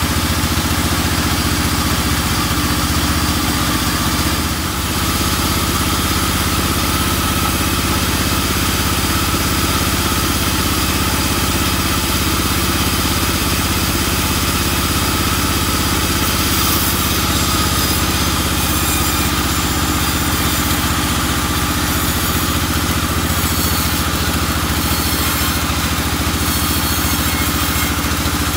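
Vertical band sawmill running steadily with a loud, even drone from its drive and spinning blade, dipping briefly about four seconds in.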